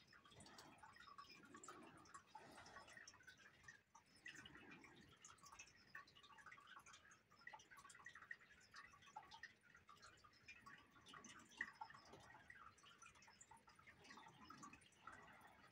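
Near silence with faint, scattered soft taps and light rustles of a paintbrush working wet paint on paper.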